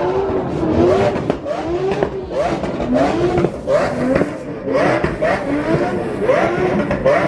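A car engine revved in quick, repeated throttle blips, its pitch rising and falling over and over.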